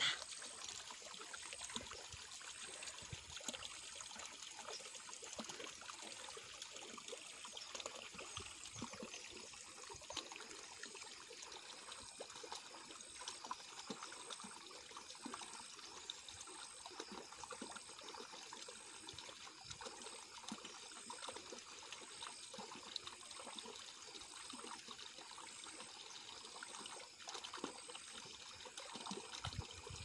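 Faint, steady trickling and running of water, like a small stream.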